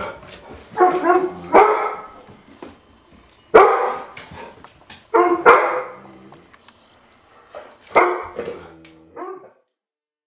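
A dog barking, about seven single barks at uneven gaps, some in quick pairs; the barking stops near the end.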